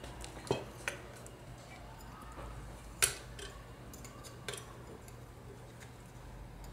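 Pliers working an aluminium wire end into a hole: a few scattered small clicks and taps of metal on wire and wood, the sharpest about three seconds in.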